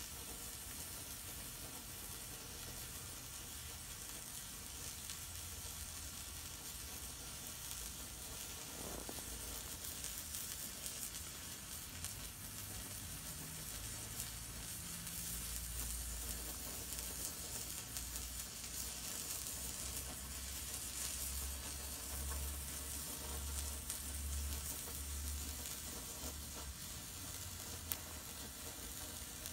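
Homemade white flare of potassium nitrate, sulfur and flake aluminium burning with a steady, even hiss.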